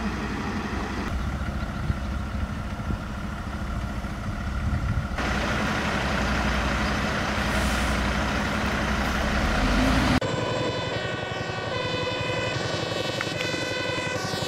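MAN fire trucks' diesel engines running, louder from about five seconds in as the trucks stand in line on a lane. About ten seconds in the engine noise gives way to a short tune.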